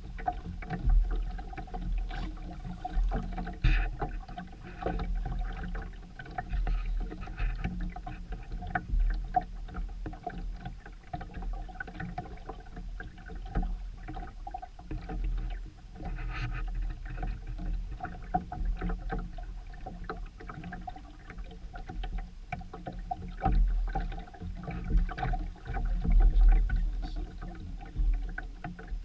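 Sailboat under way: a steady rush of noise with a heavy low rumble that rises and falls in gusts, loudest near the end.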